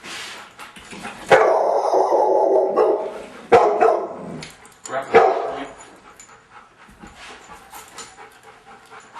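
A dog barking in three loud bouts: a long flurry lasting under two seconds, then two shorter barks, with quieter sounds after. This is the alarm barking of a fear-aggressive dog.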